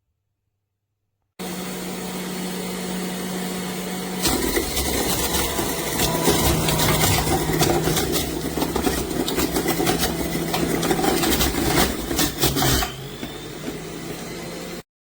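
Electric juicer motor running, then loud crunching and grinding as produce is fed in and crushed, then the motor running on lightly again. The sound starts and stops abruptly.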